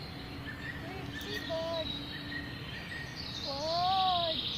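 Outdoor natural soundscape of birds calling over a steady insect buzz, with short whistled calls scattered through and one louder, arched call that rises and falls near the end.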